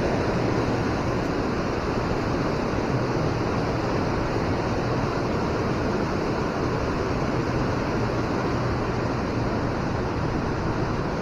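Steady rush of river water crashing down the steps of a fish ladder.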